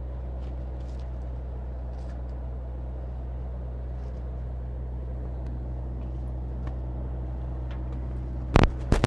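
An engine running steadily at a constant low hum, with two sharp knocks near the end.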